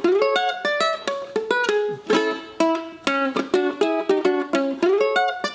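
Kala KA-PWT Pacific Walnut tenor ukulele played solo: a quick plucked melody of single notes and chords, with a couple of notes slid upward in pitch.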